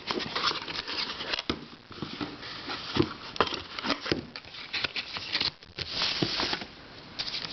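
Handling of a boxed twisty puzzle: irregular clicks, taps and rustles of a box and puzzle being turned over in the hands, with a longer rustle near the end.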